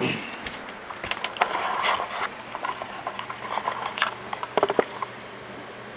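Handling noise of a handheld camera being moved and set in place: irregular scrapes, clicks and rattles, with a sharp cluster of clicks about three-quarters of the way through, then a faint steady hum.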